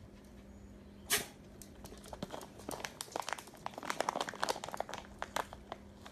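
A small dog barks once about a second in. Then come a few seconds of rapid, irregular clicking as small dogs' claws scrabble on a hard laminate floor.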